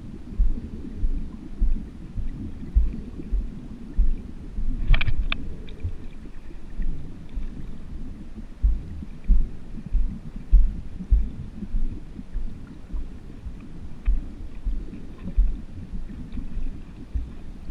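Muffled underwater sound picked up by a GoPro in its housing: water moving against the case in low, irregular thuds, a little under a second apart. Two sharp clicks come about five seconds in.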